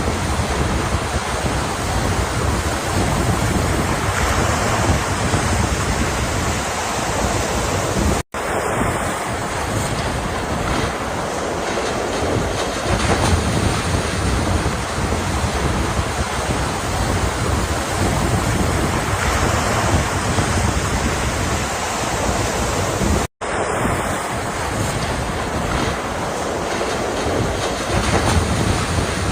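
Ocean surf: a steady wash of breaking waves, cut twice by a split-second gap of silence.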